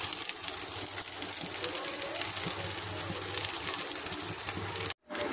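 Steady hiss of a kitchen at a lit gas stove with the chimney exhaust fan running, flecked with faint crackling.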